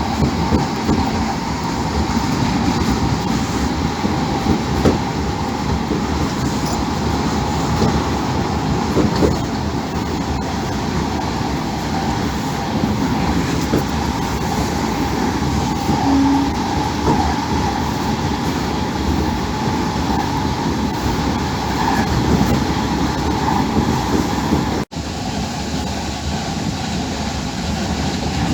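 Steady rumble of a moving vehicle, with a faint steady hum on top, cut by one brief dropout near the end.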